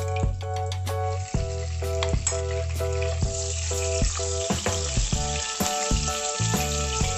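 Butter melting and sizzling in hot oil in a non-stick pan, the sizzle building about a second and a half in as a wooden spatula stirs it. Background music with a steady beat plays over it.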